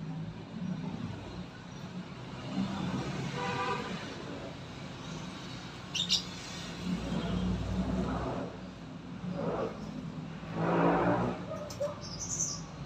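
Outdoor ambience: a steady low hum with short bird chirps about halfway through and near the end, and faint voice-like calls, the loudest about eleven seconds in.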